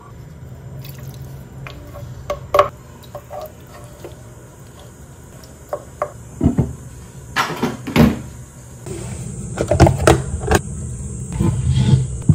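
A wooden spoon stirring a thick tomato sauce in a ceramic pot, with scattered knocks and scrapes against the pot over a steady low hum. In the last few seconds there is clattering handling of a plastic container of raw meat soaking in water.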